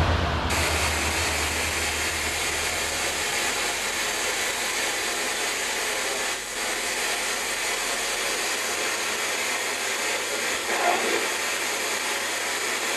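Ghost box radio sweep giving out steady static hiss, with a brief faint snatch of sound near the end.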